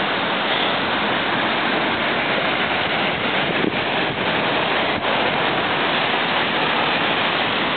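Steady rushing noise of wind on the microphone and ocean surf.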